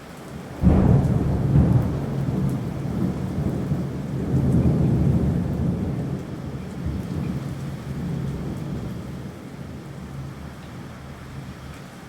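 Thunder over steady rain: a sudden clap under a second in, then a deep rumble that rolls on, swells again a few seconds later and slowly dies away.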